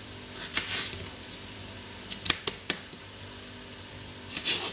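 Kitchen knife slicing a yellow bell pepper on a plastic cutting board: crisp cuts and taps of the blade on the board, a couple about half a second in, a few more around two seconds in, and a quick cluster near the end. A steady sizzle from a frying pan runs underneath.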